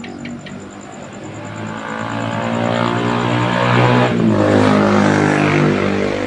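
Motor vehicle approaching and passing close by, its engine growing louder and then dropping in pitch as it goes past about four seconds in.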